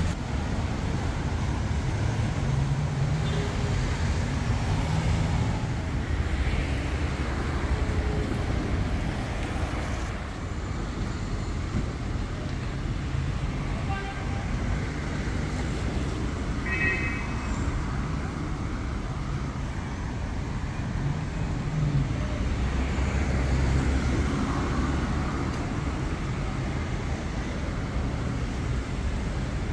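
Street traffic: cars passing on the road alongside, a steady low rumble of engines and tyres.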